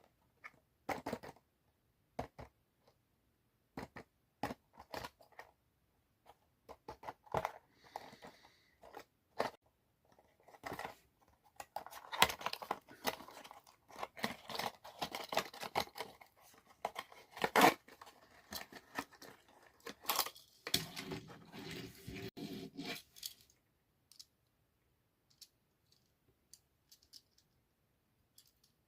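Packaging of a diecast model car being handled and opened by hand. First come scattered clicks and knocks, then about ten seconds of close tearing, rustling and scraping. A few faint clicks follow.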